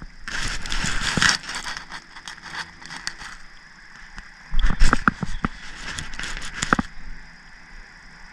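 Rod and spinning reel being handled close to the microphone. A rustling scrape runs for about the first second and a half, then a few seconds later comes a string of irregular clicks and knocks.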